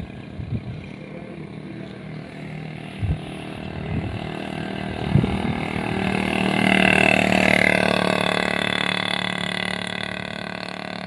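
A motor vehicle passing on the road: its engine grows louder over several seconds, peaks about seven seconds in, then slowly fades. A few low thumps on the microphone come in the first few seconds.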